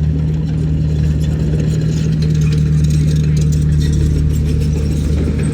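Heavy diesel engine of earthmoving machinery running steadily at an even speed, with a faint clatter over the low hum.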